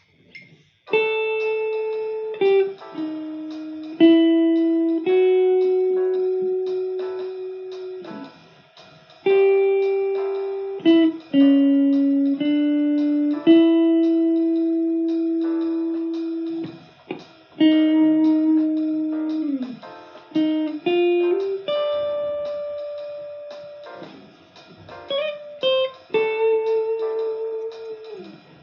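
Guitar playing a slow single-note melody, each note left to ring for a second or several seconds, with some notes sliding in pitch, in phrases with short pauses between them.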